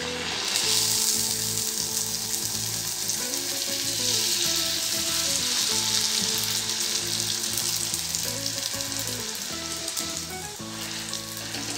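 Hot oil sizzling as a semolina-and-flour fuchka puri deep-fries and puffs up in a kadai, the hiss easing slightly near the end. Background music plays underneath.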